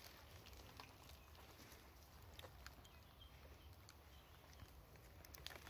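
Near silence: faint outdoor ambience with a low rumble and a few soft, scattered clicks.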